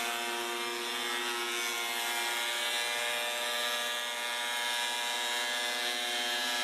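Benchtop thickness planer running steadily, a motor whine over a hiss, as a wooden board feeds through its cutterhead.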